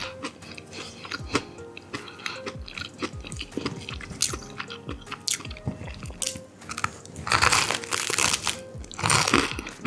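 Close-miked chewing and wet mouth clicks of someone eating, then a loud crunch as a slice of toasted garlic bread is bitten about seven seconds in, with a second crunch soon after. Soft background music plays underneath.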